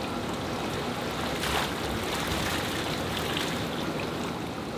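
Water running steadily from PVC pipe outlets into concrete fish tanks, with a short splash about one and a half seconds in as a dip net is worked through the water.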